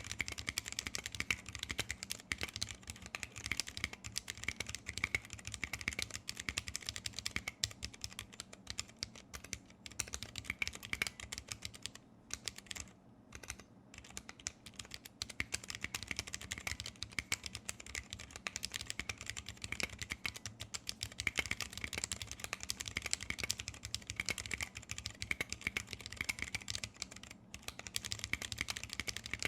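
Fast, continuous typing on a custom 60% keyboard with vintage brown Alps switches lubed with PTFE, mounted on a brass plate under PBT keycaps: a dense run of key clicks that thins briefly about twelve seconds in, then picks up again.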